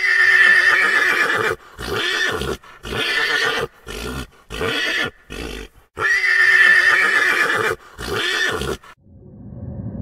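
A horse neighing: a long, high whinny, then a run of shorter whinnying calls with brief gaps. A second long whinny comes about six seconds in, followed by one more short call.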